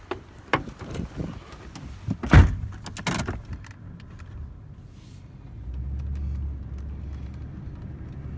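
Knocks and a jangle of keys as someone settles into a vehicle's cab, with the door shutting in the loudest thump about two and a half seconds in. About halfway through, a steady low engine rumble sets in.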